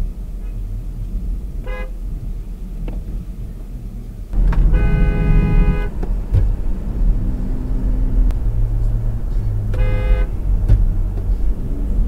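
Car horn honking. A faint short honk comes about 2 s in. The road noise then gets louder, and a loud horn blast of about a second follows. A shorter honk comes near the end, over steady road noise.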